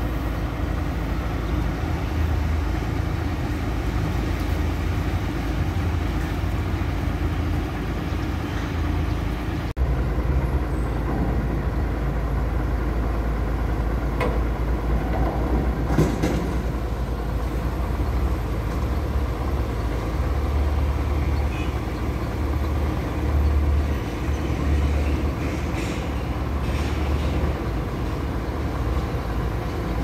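Heavy diesel engine of a concrete mixer truck running steadily, the sound deep and heavy in the low bass, with a brief dropout about ten seconds in.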